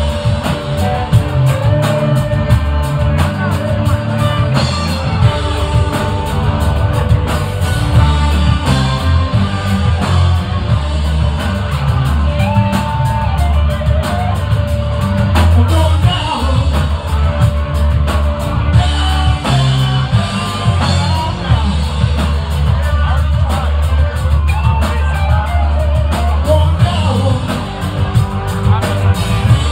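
Live rock band playing electric guitars and a drum kit, loud and continuous, with a heavy low end.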